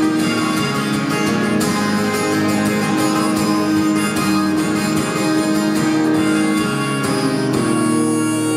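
Acoustic guitar strummed in steady rhythmic chords, played live and amplified through a PA with no singing. Near the end the strumming eases off and a chord is left ringing.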